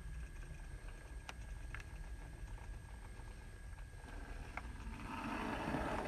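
Bachmann 57XX pannier tank model locomotive running along the model railway track: a steady low rumble with a few faint clicks, growing louder about five seconds in as it passes close.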